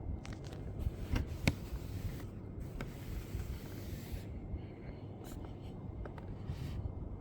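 Handling sounds from unboxing a model car: light clicks and taps, and a rubbing, rustling noise for a couple of seconds in the middle. A steady low rumble sits underneath.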